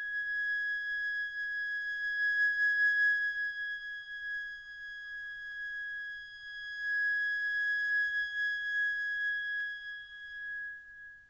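Solo concert flute holding one long, high, almost pure note, swelling and ebbing in loudness and fading away near the end.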